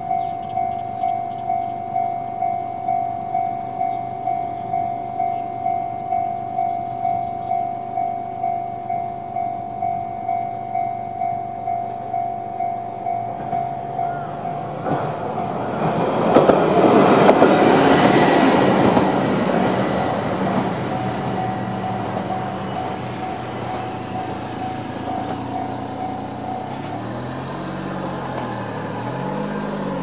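Railway level-crossing warning bell, an electronic JR East-style ding, repeating steadily; about halfway through a single-car YR-880 diesel railcar rumbles through with a few sharp wheel clicks, and the bell carries on more quietly afterwards. Near the end a Suzuki Carry kei truck's engine revs up and down as it pulls over the crossing.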